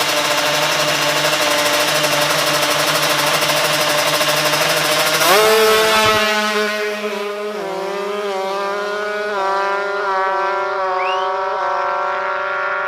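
Tuned two-stroke Kawasaki Ninja racing motorcycle engines held at high revs, then about five seconds in launching hard and accelerating up through the gears. The pitch climbs and drops at each upshift, roughly every two seconds.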